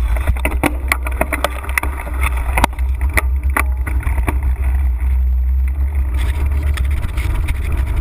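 Mountain bike rattling and clacking as it rolls from a rough dirt trail onto pavement, with sharp knocks through the first few seconds that settle into steadier rolling later. A heavy low wind rumble on the bike-mounted action camera runs under it all.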